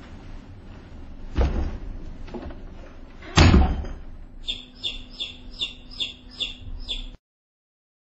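A door slams shut about three and a half seconds in, after a lighter thump. Then comes a quick run of high chirps, about four a second, until the sound cuts off suddenly.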